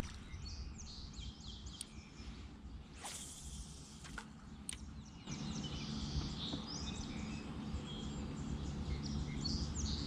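Birds chirping and singing again and again over a low, steady outdoor rumble, with a few short clicks in between.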